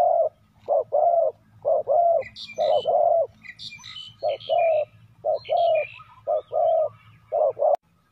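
A decoy spotted dove cooing over and over in short-then-long paired notes, calling to lure wild doves. Smaller birds chirp higher above it in the middle. The sound cuts off with a click shortly before the end.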